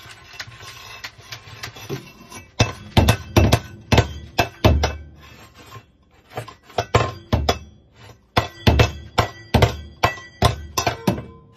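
African grey parrot knocking a stainless steel bowl about with its beak: irregular runs of metal clanks and knocks, each with a brief ring, with two short pauses in between.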